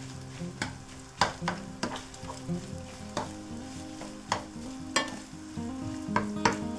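Minced beef and diced onion frying in a pan, sizzling, while a plastic spatula stirs and scrapes it, with irregular clicks and knocks of the spatula against the pan.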